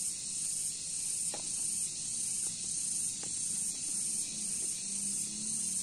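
Steady, high-pitched drone of insects in the forest, with a few faint soft clicks over it.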